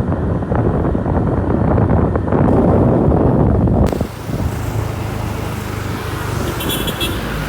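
Road traffic and vehicle noise. The sound changes abruptly about four seconds in, and a short run of high beeps comes near the end.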